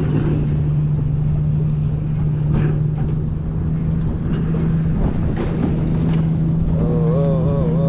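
Boat motor running with a steady hum over low rumble. A wavering, voice-like tone joins about seven seconds in.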